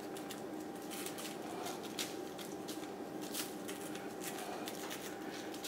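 Perforated metal spice shaker shaken over sauced ribs, the dry rub falling onto the meat and plastic bag as a run of soft, irregular ticks, with a slightly louder click about 2 seconds in and again about 3.4 seconds in.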